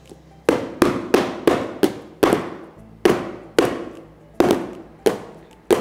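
A filled mould of warm, agar-set sunflower-seed cheese mixture being knocked down on a marble countertop to level and settle its surface: about a dozen sharp knocks at uneven intervals, with a short pause in the middle.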